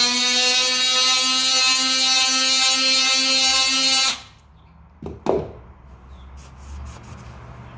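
DeWalt cordless oscillating multi-tool with a sanding pad running at a steady pitch as it sands paint off a brass window fitting. It is switched off about four seconds in, followed by quieter handling sounds.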